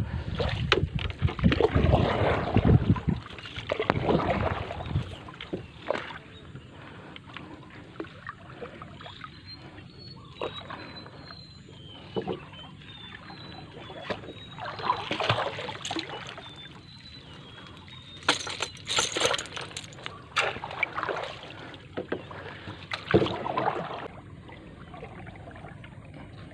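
A wooden paddle working the water beside a dugout canoe: splashing strokes and water sloshing along the hull, in bouts with quieter pauses between. The strokes are heaviest in the first few seconds, then come again in short bursts later on.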